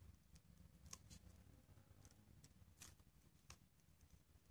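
Near silence, with a few faint ticks and small handling sounds as hands gather foam fruit netting and pin it in place.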